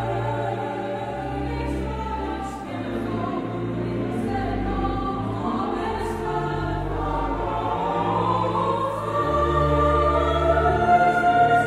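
A choir singing sustained chords with organ accompaniment, held low bass notes under the voices, swelling louder over the last few seconds.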